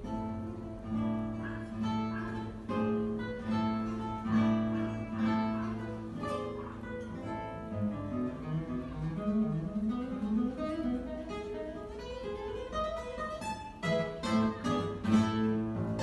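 Solo classical guitar played live: plucked melody notes over a held low bass, then a quick run of low notes rising and falling about halfway through, and a few loud chords near the end.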